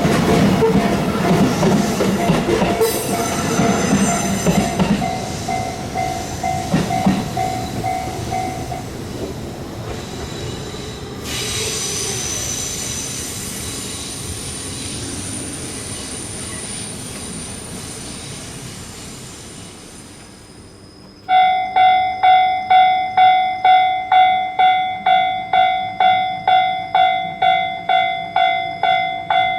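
A train passing over a level crossing, its rumble slowly dying away, with the crossing bell ringing under it for the first several seconds. About 21 seconds in, the Japanese level crossing's electronic warning bell starts abruptly, ringing evenly at about two strokes a second.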